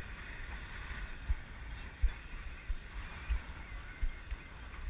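Wind and water noise on a boat drifting at sea, with irregular low thumps of wind buffeting and waves knocking at the hull.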